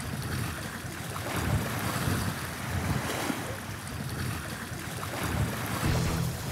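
Sea waves washing against a rocky shore, with wind buffeting the microphone as a low rumble.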